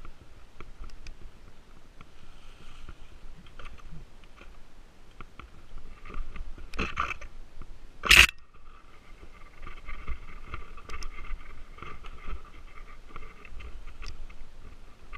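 Mountain bike rattling down a rooty dirt trail: tyres scraping and crunching over dirt and roots, with chain and frame clatter and many small knocks. One loud, sharp knock comes a little past halfway, just after a shorter louder patch.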